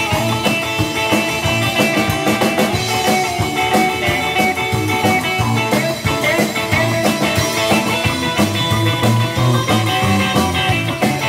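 Live rockabilly band playing an instrumental passage with no singing: drum kit beating a steady rhythm under upright double bass and guitar.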